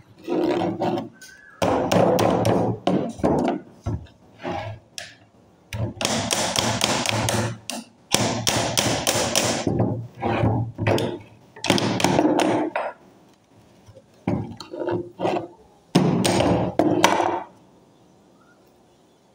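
Hammer blows on the metal of a starter motor being dismantled, which the electrician finds seized with rust and carbon. The blows come in irregular groups, with long runs of rapid strikes in the middle, and stop a couple of seconds before the end.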